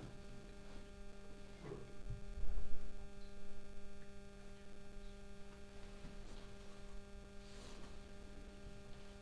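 Steady electrical mains hum, with a brief low thud about two and a half seconds in.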